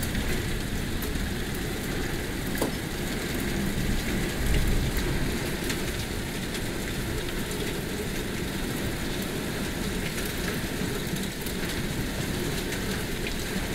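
Heavy thunderstorm rain falling steadily, pattering with many small drop clicks over a deep low rumble that swells briefly about four to five seconds in.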